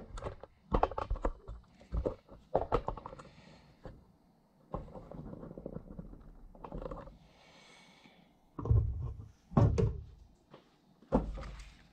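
Handling noises: scattered clicks and knocks, then several dull thunks in the last few seconds.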